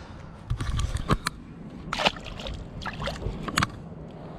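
Splashing and sharp knocks in three short clusters as a largemouth bass is released back into the water beside a small boat.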